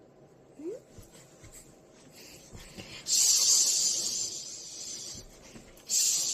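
Hair dryer blowing in short bursts: a sudden rush of air about halfway through that fades away over a couple of seconds, and a second burst starting near the end. A brief rising squeak comes under a second in.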